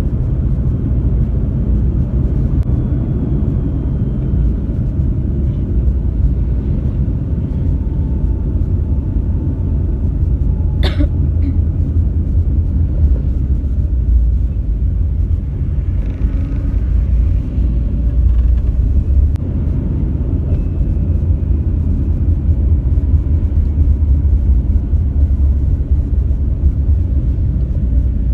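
Steady low rumble of a vehicle on the move, with road and wind noise; a single sharp click about eleven seconds in.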